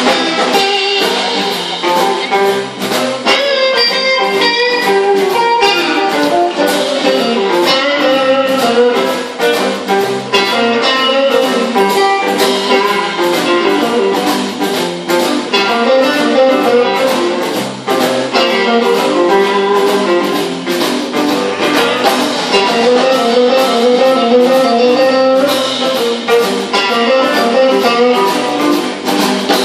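Live electric blues band playing: electric guitar lines over bass and a steady drum beat, thin in the bass.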